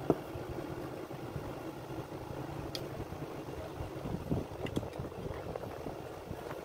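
Light clicks and knocks of the electric chainsaw's plastic housing and hand tools being handled, the loudest just after the start and a few more between four and five seconds in, over a steady low mechanical rumble in the background.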